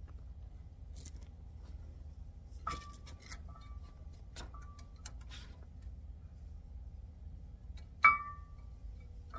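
Metal-on-metal clinks from handling tools and brake parts during a brake job. There are several light knocks and clinks in the first half, some with a short ringing note, and one sharp, much louder clink about eight seconds in, over a steady low rumble.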